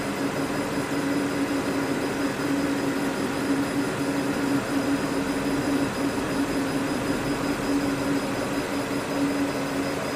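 Desktop CO2 laser cutter running while it cuts a Mylar sheet: a steady mechanical whir with a droning hum.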